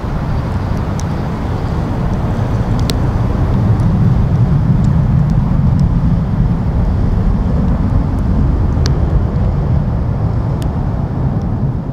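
Boeing 767-300F freighter climbing out after takeoff, its twin General Electric CF6 turbofans making a deep, steady jet rumble that swells about four seconds in and eases slightly near the end. A few faint clicks sound through it.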